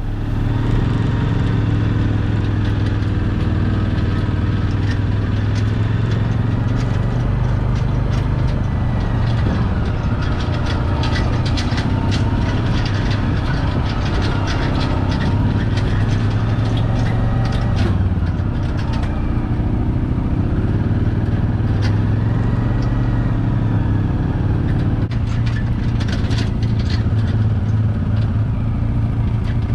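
The log splitter's small gas engine runs steadily. Its pitch dips briefly and recovers a little past halfway, as the engine takes the load of the ram pushing through a log, and there are scattered clicks and knocks from the wood.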